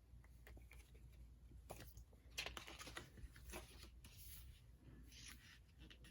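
Faint rustling and soft clicks of a small album photo book being handled and its pages turned, a handful of light taps spread through.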